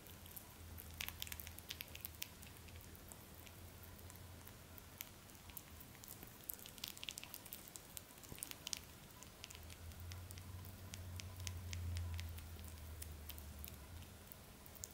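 Netherland Dwarf rabbit nibbling and chewing soft banana: quick, irregular, wet little clicks and smacks, with a low hum underneath that grows louder about ten seconds in.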